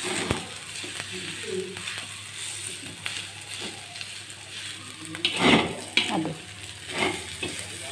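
Fried rice sizzling in a stainless steel wok while a metal spatula scrapes and turns it against the pan, with the loudest scrape about five and a half seconds in.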